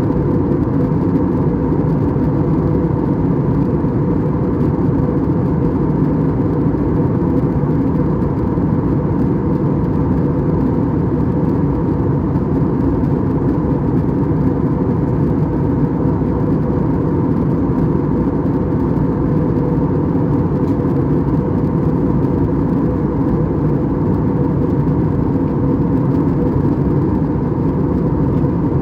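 Steady in-flight cabin noise inside an Airbus A320-200: engine drone and rushing airflow with a faint steady hum, unchanging throughout.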